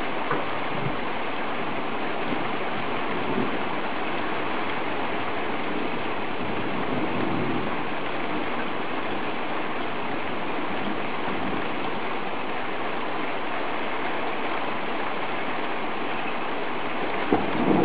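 Heavy rain pouring down steadily on a street and rooftops in a thunderstorm. Near the very end a louder rumble of thunder breaks in.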